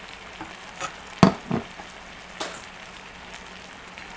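Creamy pasta sauce simmering on high heat in a grill pan, giving a steady bubbling hiss. A few short knocks and clicks from handling at the pan come through it, the loudest about a second in.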